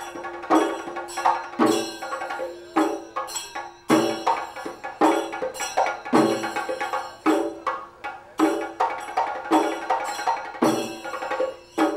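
Kerala temple drums played in a fast, steady rhythm, with a strong accented stroke about once a second. This is the drumming that traditionally announces the shadow puppet play.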